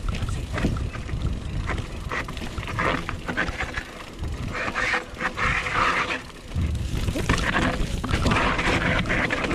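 Mountain bike descending a rocky trail at speed: tyres rolling and skipping over rock and dirt, the frame and chain clattering with many small knocks, and wind buffeting the mounted camera microphone in surges.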